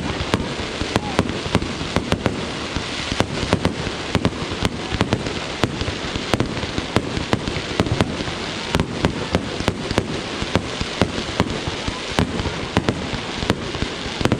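Fireworks display: many sharp bangs and pops, several a second and irregularly spaced, over a continuous crackle.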